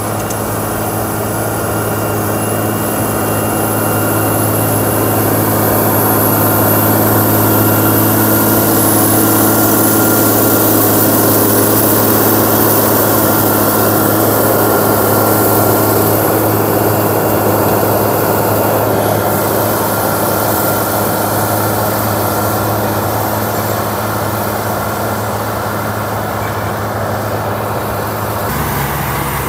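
Caterpillar D6T bulldozer's diesel engine running under load, a steady heavy drone that swells louder toward the middle and eases off again.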